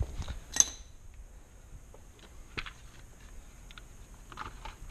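Scattered light clicks and taps of hands handling tools and a plastic engine cover, with one sharp click about half a second in as the loudest.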